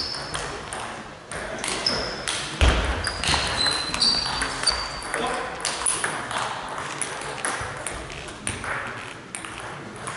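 Table tennis ball clicking off the bats and bouncing on the table in a rally, ringing in a large hall. A few short high squeaks are heard in the first half.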